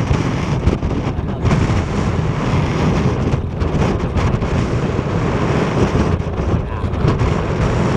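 Wind buffeting the microphone over the steady rumble of the moving boat and sea.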